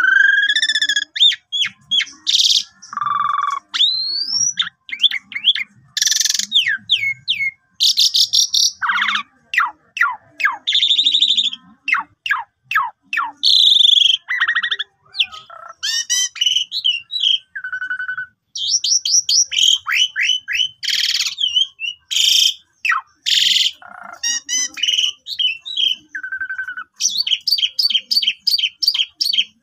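Asian pied starling (jalak suren) singing a long, varied song almost without a break: clear whistles, rising and falling slurs, harsh chatters and fast rattling trills. Near the end comes a quick run of repeated chattering notes.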